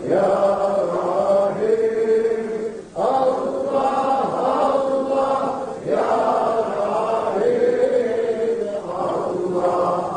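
Sufi vocal dhikr: a man chanting the name "Allah" into a microphone in long, drawn-out phrases, each lasting about three seconds with a short break between them.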